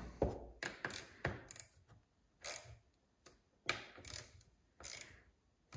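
Hand ratchet clicking in short, irregular spells as the chainsaw's handle bolts are snugged up by hand to check their tightness, with light knocks of tool on metal and plastic.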